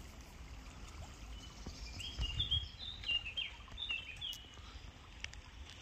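A small bird chirping: a run of short, high chirps for about three seconds, over faint outdoor background noise.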